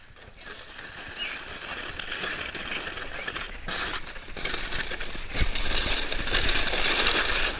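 Sled sliding down a snowy slope: a hiss and scrape of snow under the sled that grows steadily louder over several seconds, with a couple of brief dips near the middle.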